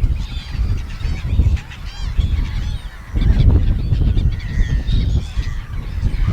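Gulls calling over and over, short arched cries, over a gusty low rumble of wind on the microphone.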